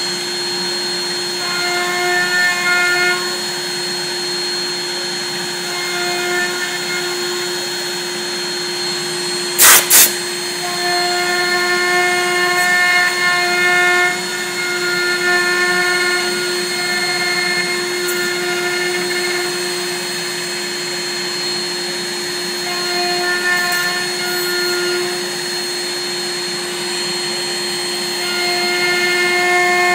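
Desktop CNC router spindle running steadily with a constant whine while milling black locust wood, the cutting tone rising and falling as the cutter goes in and out of the wood every few seconds. Two sharp loud clicks about ten seconds in.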